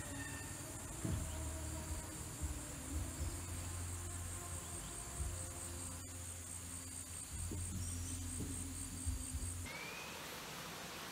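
Insects trilling in a steady, high-pitched pulsing chorus over a low rumble, cutting off abruptly near the end.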